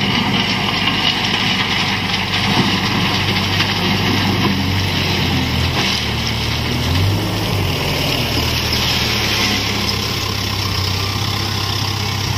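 Case backhoe loader's diesel engine running steadily while its front bucket pushes crushed stone, the engine note rising briefly about seven seconds in.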